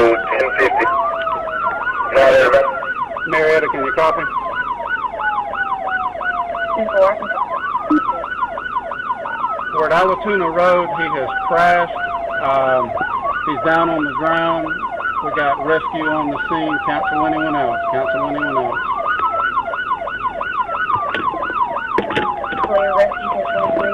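Emergency vehicle sirens sounding together: a slow wail rising and falling about every five seconds over a fast yelp. A few sharp clicks are heard near the start and again about ten seconds in.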